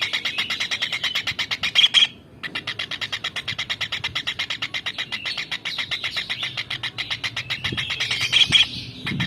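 Tengkek udang (kingfisher) calling in a fast, even chatter of short high notes, about ten a second. The chatter breaks off briefly twice, just after a couple of louder notes.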